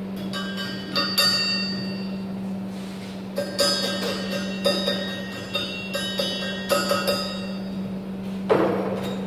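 Irregular sharp clinks of steel being struck and handled, each ringing briefly with a metallic tone, over a steady low hum.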